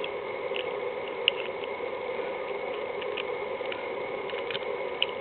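A few faint, scattered clicks of a key being worked in a freshly reassembled Holden Commodore VX ignition lock barrel, over a steady background hum.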